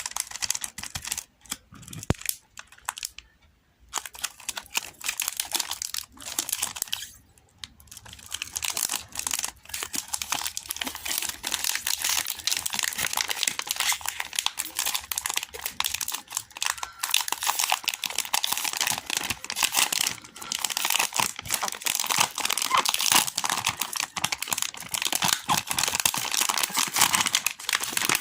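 Chocolate wrappers being crinkled and torn open by hand, a dense crackling. It comes in short spells with brief pauses over the first eight seconds, then runs on almost without a break.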